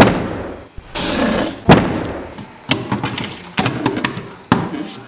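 Hands slapping down on a cardboard box, about five sharp thumps spaced roughly a second apart, with a brief rasping noise about a second in.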